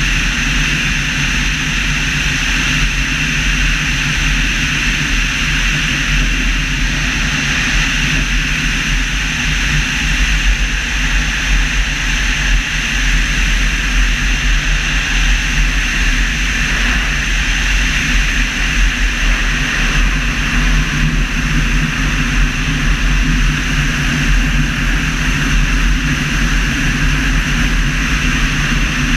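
Steady rush of air over an externally mounted camera on a gliding Evektor EV-97 Eurostar with its engine stopped and propeller still: a low rumble and a hiss, with no engine sound.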